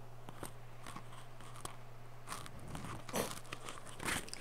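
Faint scattered clicks and rustles of a phone being handled close to its microphone, with a few louder rustles in the second half, over a low steady hum.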